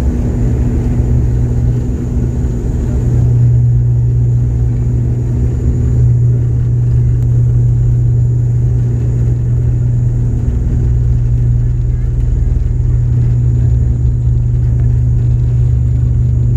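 Turboprop airliner's engines and propellers heard from inside the cabin: a steady drone with a strong low hum, growing a little louder about three seconds in.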